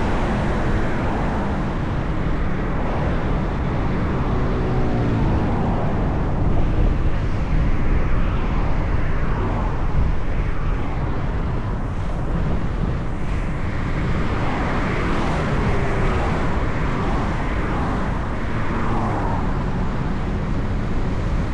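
Steady road and engine rumble of a car driving in traffic, with faint rising and falling engine notes a few seconds in and again past the middle.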